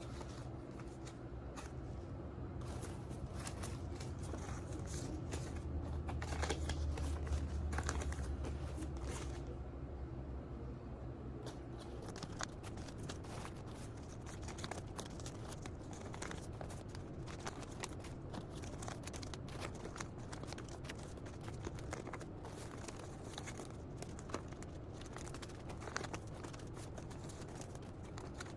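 Rustling and crinkling with many small clicks and knocks, like handling noise, over a low hum that swells for a few seconds in the middle.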